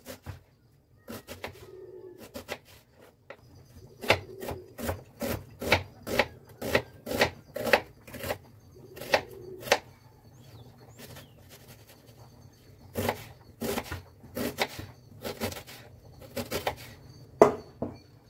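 A kitchen knife chopping red onion on a plastic cutting board: sharp knocks of the blade on the board, about two a second, in two runs with a pause in the middle.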